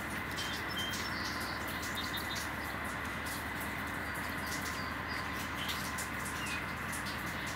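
Small birds chirping in short, scattered calls over a steady rumble and hiss from a distant diesel freight train.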